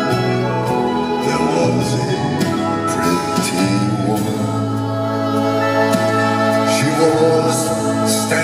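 Slow song performed by a band with singing, over sustained chords that hold steady throughout.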